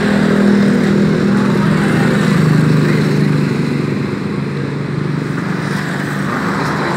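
Motorcycle engine passing close by on the road, its note dropping in pitch as it goes past and then fading into steady traffic noise.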